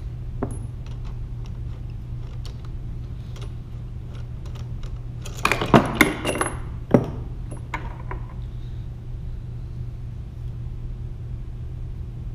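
Connecting rod cap and its bolts clinking as they are handled and set down, with a cluster of sharp metal clinks about five to seven seconds in and a few lighter clicks, over a steady low hum.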